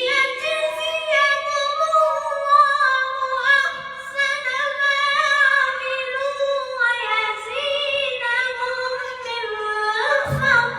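A single voice reciting the Quran in melodic chanted style, drawing out one long ornamented phrase for about ten seconds with the pitch winding up and down, then breaking off briefly near the end.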